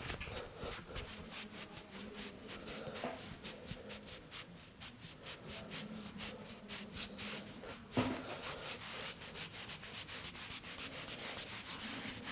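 Massage hands rubbing and stroking over a person's back in quick, rhythmic strokes, several a second, with one louder hit about eight seconds in.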